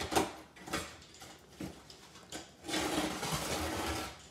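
Box cutter slitting the packing tape on a cardboard box: a few short scrapes and taps, then one long, steady slitting rip starting a little under three seconds in and lasting just over a second.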